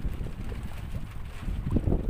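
Wind buffeting the microphone on an open fishing boat at sea: an uneven low rumble, with a stronger gust near the end.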